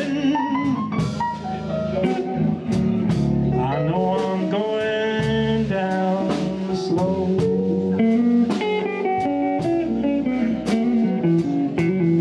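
A live blues band playing an instrumental passage: a guitar plays a lead line over bass and drums, with steady cymbal strikes.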